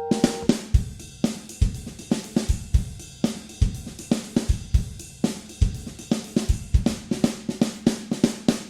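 Background music: a drum kit playing a steady beat of kick, snare and hi-hat on its own, a drum break between guitar-and-bass sections.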